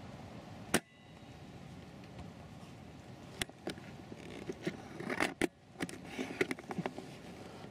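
A single sharp click about a second in, then a cluster of clicks and crackling rustle through the middle.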